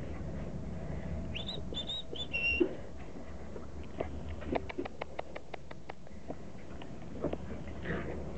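Border collie puppies at play: a few short, high-pitched squeals a little over a second in, then a rapid run of light clicks from their claws on the tiled floor as they scamper about.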